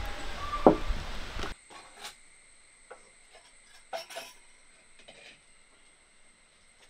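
Outdoor background noise with one sharp knock, which cuts off suddenly after about a second and a half; then a few faint, light clinks, spaced about a second apart.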